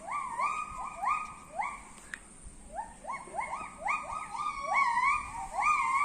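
A tree-dwelling primate calling: a fast series of rising whoop notes, about three a second, overlapping as though from more than one animal.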